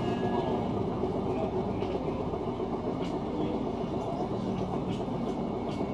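Route bus running, a steady low rumble of engine and road noise heard from on board.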